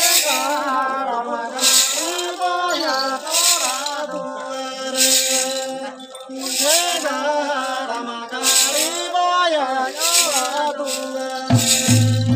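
Folk dance song: a single voice sings a winding melody over a steady held drone, with a rattling hiss marking the beat about every second and a half. Near the end deep drum beats come in.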